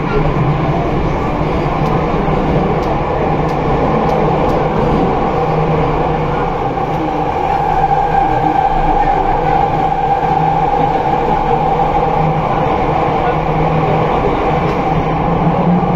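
MRT Jakarta Ratangga metro train running at speed through a tunnel, heard from inside the carriage: a steady rumble with a constant low hum and a higher whine that grows a little stronger midway.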